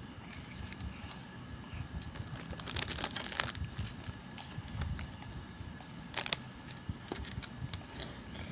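Clay-filled plastic zip-lock bags crinkling and rustling as they are shuffled by hand, in irregular crackly bursts, busiest about three seconds in and again just after six seconds.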